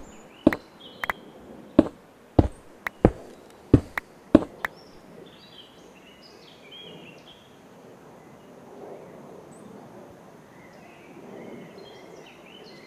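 A series of about ten sharp clicks or knocks in the first five seconds, irregularly spaced. Then a quiet outdoor background with faint, short, high chirps.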